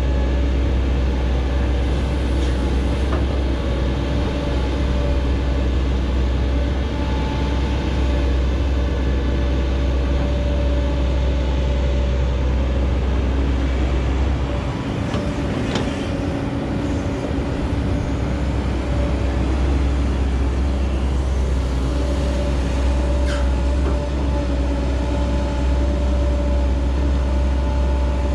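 Heavy diesel excavator engine running steadily, with a deep rumble and a steady whine. The rumble eases briefly about halfway through, and a couple of faint knocks sound in the second half.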